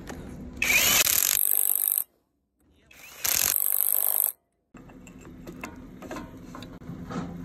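A SATA cordless impact wrench hammering on the cylinder's gland flange bolts in two bursts of about a second and a half each, each cut off suddenly. After these come quieter clinks of hand work on metal parts.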